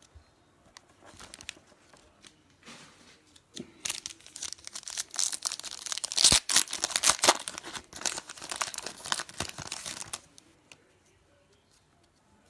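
Foil trading card pack wrappers being torn open and crinkled by hand, a dense run of sharp crackles starting about four seconds in and stopping near ten seconds.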